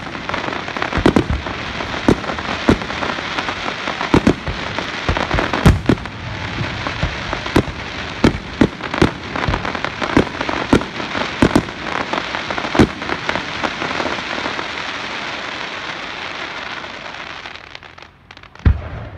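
Aerial fireworks in a rapid barrage: a continuous dense crackle from white crackling shells, punctuated by many sharp booms. The crackle dies away near the end, and one last loud bang follows.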